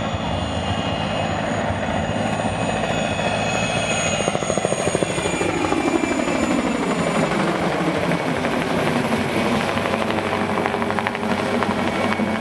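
PZL Mi-2 helicopter with twin turboshaft engines flying low overhead: the main rotor beats and the turbines whine steadily. Its pitch falls as it passes over, about four to seven seconds in.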